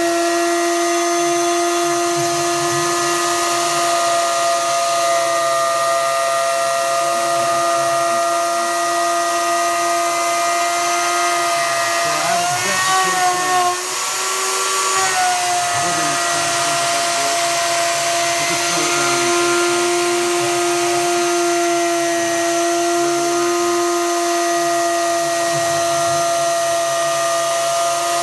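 CNC router's Craftsman router motor spinning a 1/4-inch spiral bit through 3/4-inch birch plywood: a loud, steady whine that briefly wavers and dips in pitch about halfway through.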